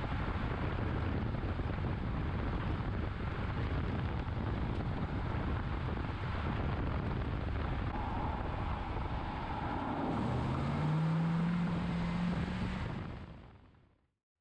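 Road and wind noise from a third-generation GM F-body car on the move, picked up by a camera down at the front suspension. About ten seconds in, a low hum rises in pitch for a couple of seconds, then the sound fades out.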